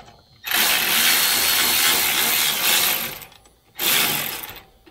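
Cordless electric ratchet running on the turbo wastegate actuator linkage for about three seconds, then a second short burst near the end. This is the actuator rod being adjusted.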